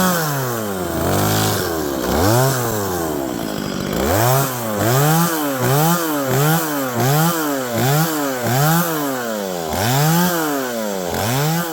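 Chainsaw carving wood, its engine revving up and down over and over as the throttle is pulsed: about two revs a second in the middle, slower near the start and end.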